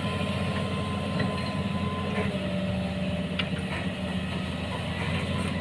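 Excavator's diesel engine running steadily, a continuous low hum with faint whining tones above it.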